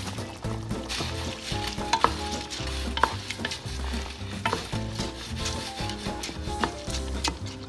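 A wooden spoon stirring rice in a pot of simmering tomato broth, with a sizzling hiss and a few sharp knocks of the spoon against the pot. Background music with a steady beat plays underneath.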